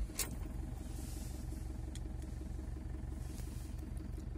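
Fiat Ducato 2.5 TDI four-cylinder turbodiesel idling cold, just after starting, with a steady, evenly pulsing diesel rumble.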